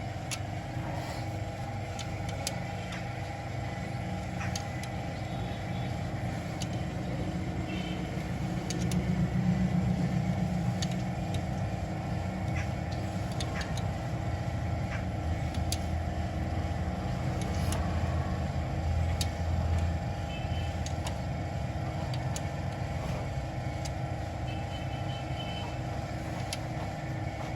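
Toyota GLi engine running at idle after tappet adjustment, with a steady low hum that swells slightly a few times as if lightly revved. Scattered light ticks sound over it.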